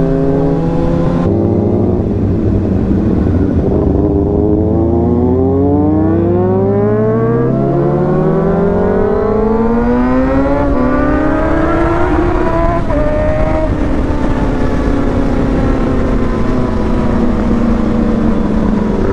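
Kawasaki ZX-6R's inline-four engine heard from the rider's seat, cruising at low revs, then pulling steadily up through the revs for several seconds as it accelerates. About two-thirds of the way through the revs drop, ease down and settle to a steady cruise.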